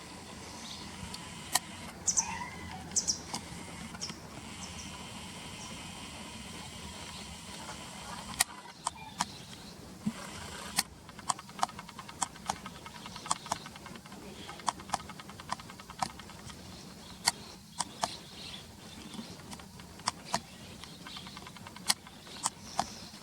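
Barn swallows giving short, sharp chirps, scattered irregularly, over a steady low hum of distant traffic.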